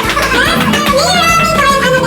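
Music with singing and a steady bass line.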